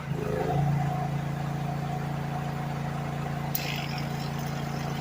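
Small two-stroke Echo chainsaw idling steadily, picking up slightly about half a second in.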